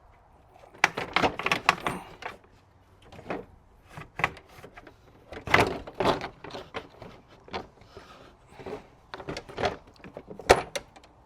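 Irregular clinks and knocks of hand tools and loosened parts as bolts are taken out to free a car's radiator for removal, coming in short clusters with pauses between.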